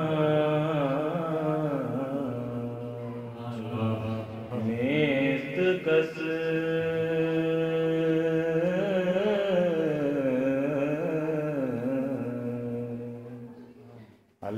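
A devotional vocal chant, one voice drawing out long gliding notes over a steady held drone. It fades away just before the end.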